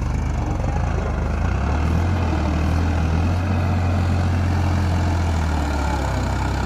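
Farmtrac 45 tractor's diesel engine running at a steady speed. It picks up a little about a second and a half in and eases back near the end.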